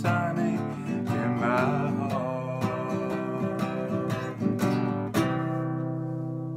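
A man singing while strumming an acoustic guitar. About five seconds in he strums one last chord and lets it ring and slowly fade.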